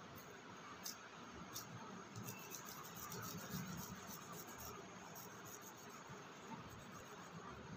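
Faint rustling and light crackling of hands kneading clay and raking through crumbled dry soil on a wooden board, a little louder about three to four seconds in.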